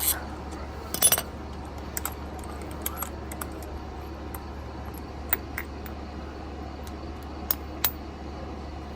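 A few scattered light metallic clicks and clinks from a jack and metal tools being handled while lifting a power wheelchair, over a steady low hum.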